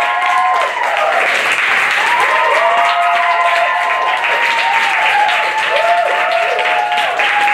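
Theatre audience applauding steadily at a curtain call, with pitched voices calling out over the clapping, their cheers rising and falling in pitch.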